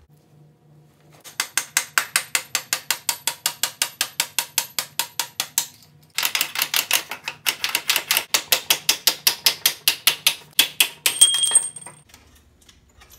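Hand ratchet wrench clicking rapidly, about six clicks a second, as a fastener on a Yamaha YZ125 dirt bike is turned; two long runs of ratcheting with a short pause about six seconds in.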